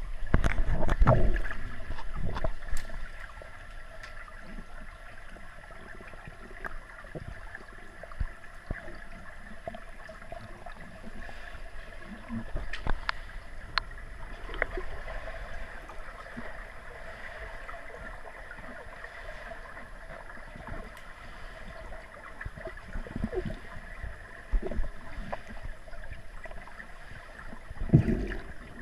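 Pool water heard through an underwater camera: loud splashing and gurgling for the first couple of seconds as the camera goes under the surface, then a steady underwater hiss and hum with scattered faint clicks. A short burst of sloshing comes again near the end.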